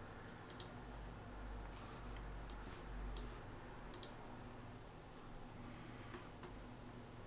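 Computer mouse button clicks, faint and scattered, several in quick pairs, over a low steady hum.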